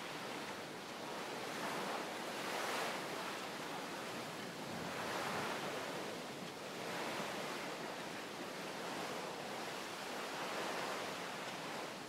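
Sea waves washing against a seawall: an even hiss that swells and eases every couple of seconds.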